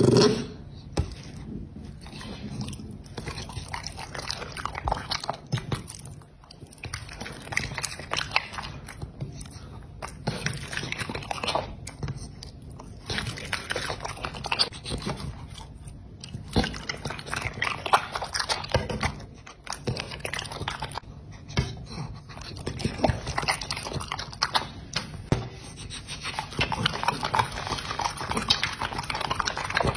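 Dog eating raw chicken breast, with wet chewing, biting and smacking sounds. Near the end it licks a raw egg yolk off a metal plate, with denser, wetter lapping.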